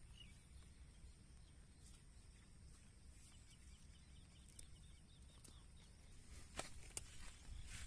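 Near silence: faint rural field ambience with a low steady rumble and faint small bird chirps, and a few soft clicks near the end.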